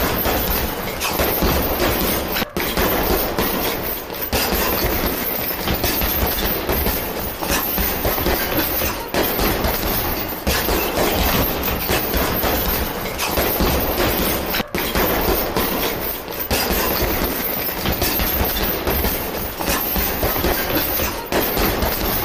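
Unbroken flurry of gloved punches striking a TKO heavy bag, the rapid impacts running together into a continuous clatter. It stops very briefly twice, about two and a half and fifteen seconds in.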